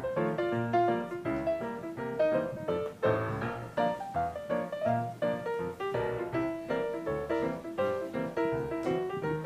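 Background music only: a light, bouncy tune of short, quick notes over a recurring bass note.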